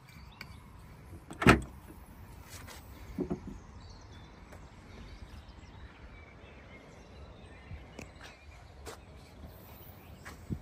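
Rear barn doors of a MINI Clubman worked by hand: a sharp door-latch clunk about a second and a half in, a softer knock a couple of seconds later, then a few faint clicks.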